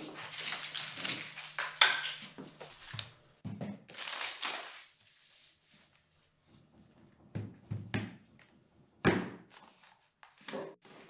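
Workshop handling noises: rustling and scraping for the first few seconds, then a few separate knocks and thuds, over a faint steady low hum.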